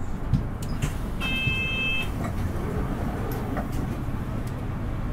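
Interior running noise of a Nissan Diesel Space Runner RA city bus: a steady low diesel engine and road rumble, with a few sharp clicks early and a steady electronic beep lasting about a second, starting a little over a second in.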